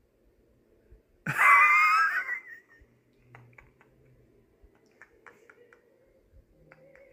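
A man lets out a brief, loud, high-pitched squealing laugh a little over a second in. Soft, stifled wheezy laughter follows behind his hand.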